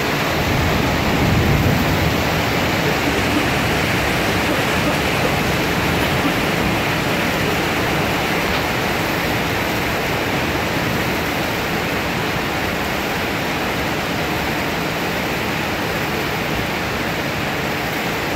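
Heavy thunderstorm rain pouring down, a steady dense hiss without a break.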